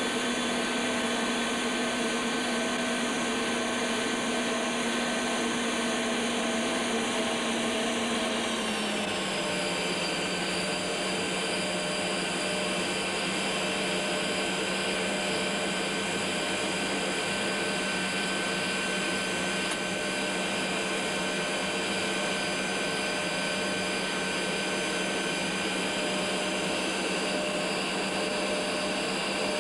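Steady whine of a Tornado GR1's RB199 turbofan engines heard inside the cockpit, with several fixed tones. The pitch steps down slightly about nine seconds in, then holds steady again.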